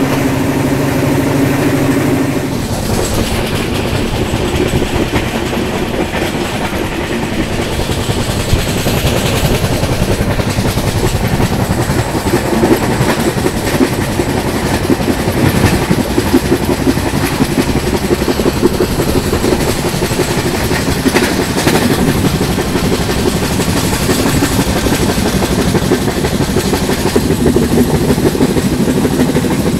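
Konark Express passenger train running on the track: a continuous rumble of wheels on rail with a clickety-clack from the rail joints. A steady hum at the start gives way to the rumble after about two seconds.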